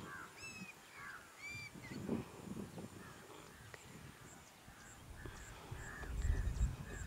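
Wild birds calling outdoors. A few arched, ringing calls come in the first two seconds, then a run of short chirps and a fast, even, high ticking in the second half. A low rumble comes near the end.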